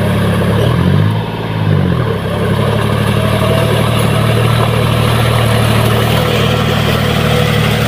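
John Deere tractor's diesel engine running under load while the cage-wheeled tractor works through a flooded, muddy paddy field. About a second in, the engine speed sags and then picks back up, and it runs steady after that.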